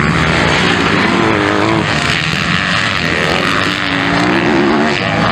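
MX2-class motocross bikes running on a dirt track, several engines revving at once with the pitch rising and falling as the riders work the throttle.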